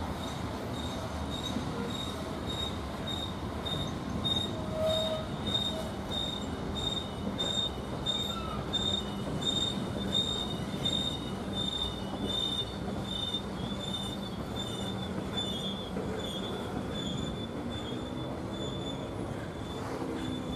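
Freight train of covered hopper cars rolling slowly through a curve: wheel flanges squealing against the rail in a high tone that pulses about twice a second, over the low rumble of the cars.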